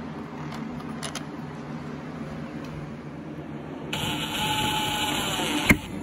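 Cordless drill-driver running with a steady whine for about two seconds, driving a screw into the lock's mounting plate, then a sharp click as it stops near the end.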